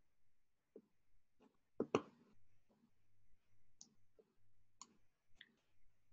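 Near silence with faint, irregular small clicks and taps, the loudest a close pair about two seconds in, over a faint low hum.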